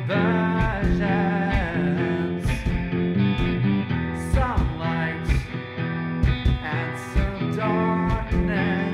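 Alternative rock song: a guitar-led band track with regular drum hits and a wavering melody line over sustained low notes.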